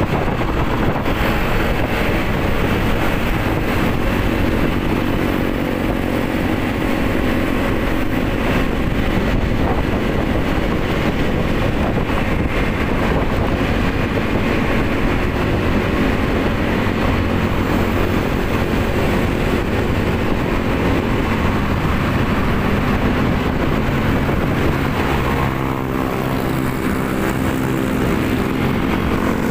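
Motorcycle engine running steadily under way, mixed with road and wind noise; about four seconds before the end the engine note becomes clearer and steadier.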